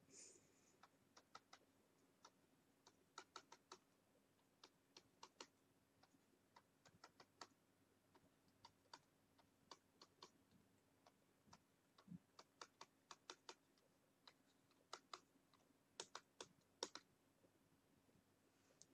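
Faint, sharp clicks of a computer mouse in irregular clusters, about two or three a second, as letters are drawn freehand in a paint program.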